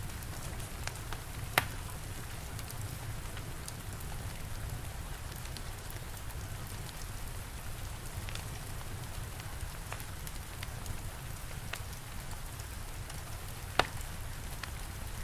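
Steady rain with a low rumble underneath and scattered small crackles from a fire. Two sharp, louder pops come, one about a second and a half in and one near the end.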